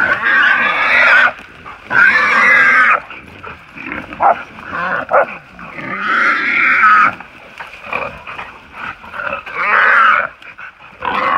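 A wild hog held by catch dogs squealing, five loud, shrill squeals of about a second each, with shorter, quieter sounds between them.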